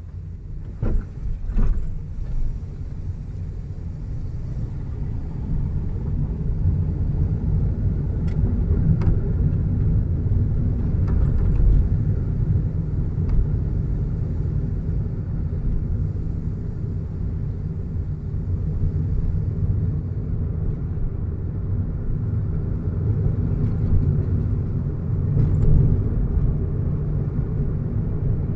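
Car driving along a road: a steady low rumble of tyres and engine, with a few short knocks about a second in.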